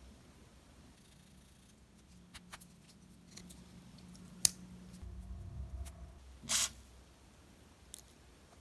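A few small sharp clicks and handling sounds from a Leatherman Squirt PS4 multi-tool being handled and turned over. The loudest is a single sharp click about halfway, followed by a short scratchy burst a couple of seconds later.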